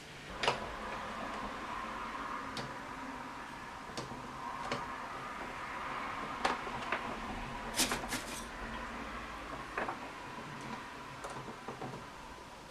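Scattered light clicks and knocks of parts being handled as a record player is taken apart, a small cluster of louder clacks about eight seconds in, over a faint steady hum.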